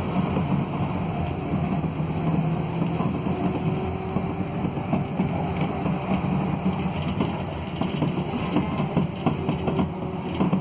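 Interior noise of a Scania K280UB city bus under way: its five-cylinder DC09 diesel with the ZF Ecolife automatic gives a steady low hum. From about halfway on, short knocks and rattles come through as well.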